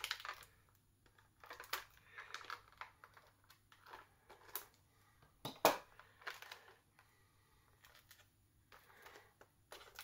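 Clear plastic blister packaging crinkling and clicking in the hands as an action figure is worked free of it, with scattered short snaps and one sharper, louder click about five and a half seconds in.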